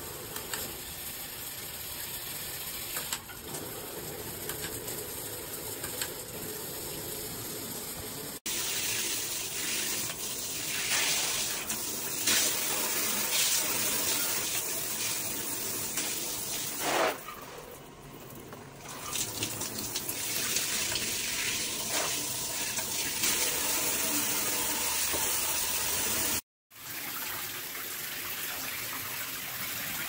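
Water spraying steadily from a Cobbe filtered handheld shower head onto the shower wall and bathtub. The hiss gets louder about eight seconds in and drops out for an instant near the end.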